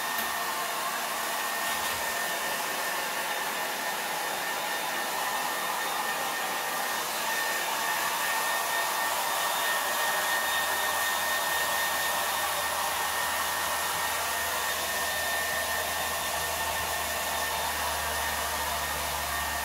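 Handheld blow dryer running steadily, blowing a dog's coat dry: an even rush of air with a thin, steady high whine.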